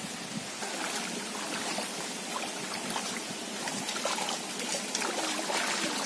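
Water trickling and splashing as water is poured out of a clay cooking pot into a shallow stream.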